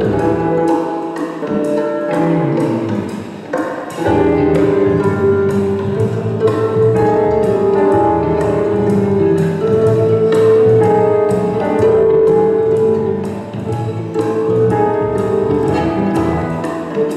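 Harp music: plucked concert harp notes over a backing track with sustained tones and a steady percussive beat.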